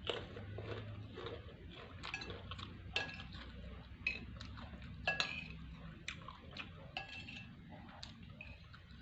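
Cutlery clinking against a plate or bowl while a meal of rice and beef rawon is eaten: sharp clinks about once a second, some ringing briefly.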